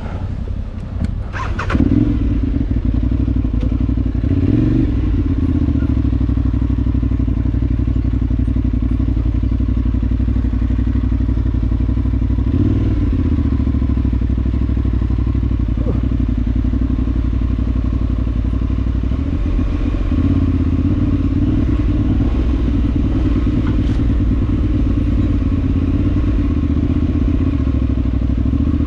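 Adventure motorcycle engine running steadily while being ridden off-road, with a few knocks in the first two seconds.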